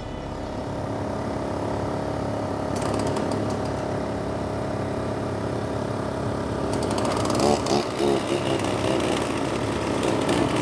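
Narrowboat diesel engine running steadily at cruising speed. It gets louder and more uneven about seven seconds in.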